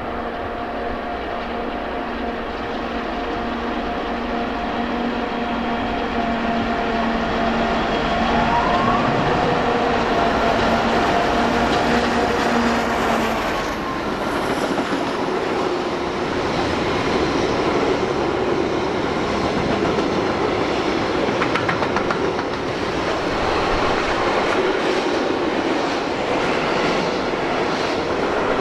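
Class 232 'Ludmilla' diesel locomotive with its 16-cylinder engine running steadily as it approaches and passes below, its engine tone dropping away about halfway through. The long freight train's wagons then roll past with wheel noise and scattered knocks over the rails.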